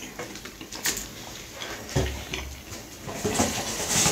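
Handling of a plastic soda bottle as its cap is twisted: light clicks and rustling, with a dull knock about two seconds in.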